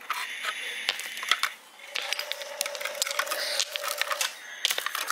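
Small stones clicking and knocking against a wooden toy truck and the rock under it as they are handled in its cargo box: a quick, irregular series of light taps.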